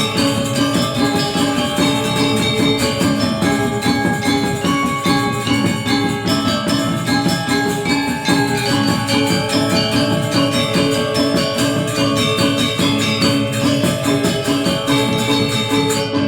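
Balinese gamelan music: an ensemble of bronze metallophones and gongs struck in fast, dense, continuous patterns, with many ringing tones layered over one another.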